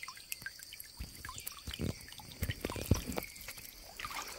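Water dripping and trickling, with small splashes and a few dull knocks as a prawn trap is handled in shallow water; the loudest knock comes about three seconds in. A faint steady high whine runs underneath.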